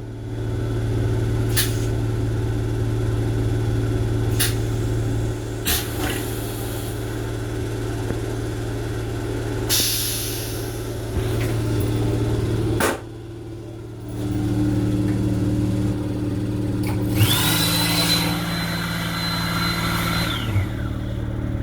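Steady low hum inside a Long Island Rail Road M7 railcar's restroom, with a few sharp clicks and knocks. Near the end a high whine with lower tones under it starts abruptly, holds for about three seconds, then fades.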